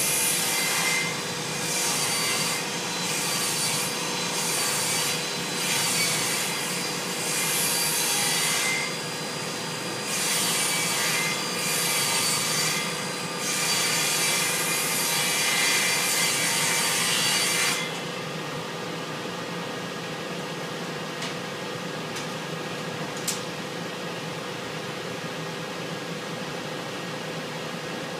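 Table saw ripping plywood, the cutting noise rising and falling as the sheet is fed through, in two passes with a short break about nine seconds in. The cutting stops about 18 seconds in, leaving a quieter steady hum, with one sharp click near the end.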